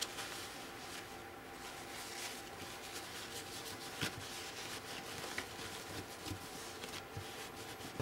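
Paper towel rubbing paint off a plastic palette lid, a soft steady scrubbing with a couple of small clicks.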